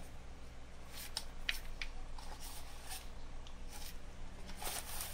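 Hands working loose potting soil on newspaper: soft, scattered rustling and crackling as the soil is gathered and patted.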